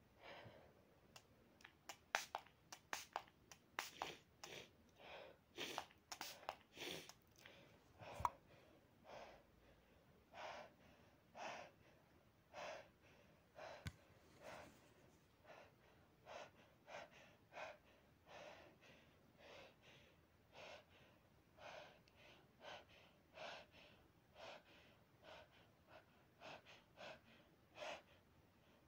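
A person's short, quick breaths, faint and repeated about once a second, with a few sharp clicks in the first several seconds.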